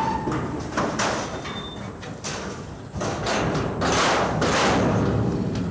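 Giraffe hooves thudding and scuffing on hard ground and boards, several heavy thuds among rushes of scuffling noise as a frightened giraffe moves about.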